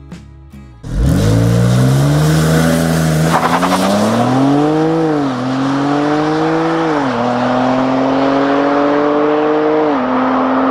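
A car engine revving up hard and accelerating through the gears. Its pitch climbs, then drops sharply at each of three upshifts, about 5, 7 and 10 seconds in. Faint background music plays for the first second before the engine comes in.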